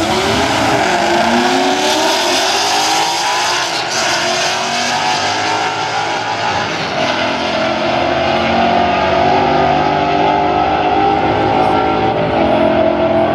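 A Chevy SS's 6.2-litre V8 and a Mustang's engine launching together in a drag race at full throttle, the pitch rising over the first few seconds as they pull away down the strip, with engine noise carrying on steadily after.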